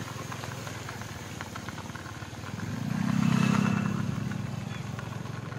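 A small motorcycle engine running at a steady pitch, growing louder about three seconds in and then fading, as a motorbike comes close through the shallow flood water on the road.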